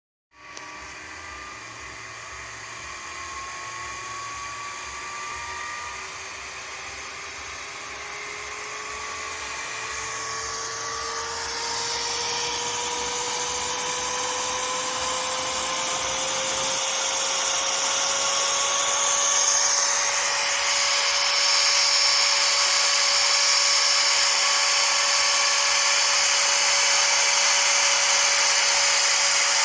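Desktop computer's cooling fan starting up with a whine that rises in pitch and grows louder over about twenty seconds, then holds steady at full speed. A fan stuck running at full speed like this is a sign of a PC that is not starting up.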